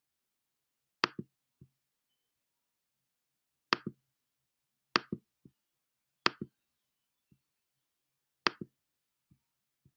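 Five sharp clicks from a computer's pointing-device button, each a quick press-and-release pair, a second or more apart, with a few fainter ticks between them.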